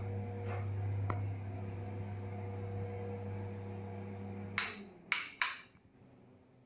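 A steady low electrical hum that stops suddenly a little over four and a half seconds in, with three short sharp clatters around the moment it stops.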